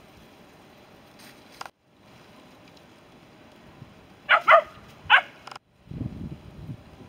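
A dog barks three times in quick succession, a little over four seconds in. Low wind rumble on the microphone follows near the end.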